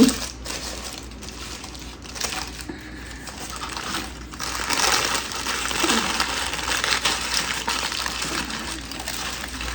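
Paper fast-food wrappers and bags rustling and crinkling as they are handled, busier and louder in the second half.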